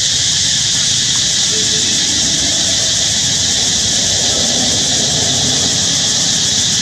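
Steady, loud, high-pitched insect chorus drone, unbroken throughout, with a faint low rumble beneath.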